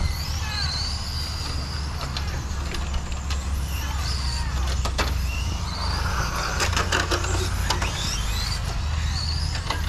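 Electric radio-controlled car motor whining, its pitch rising and falling with the throttle, over a steady low rumble, with a few sharp clicks.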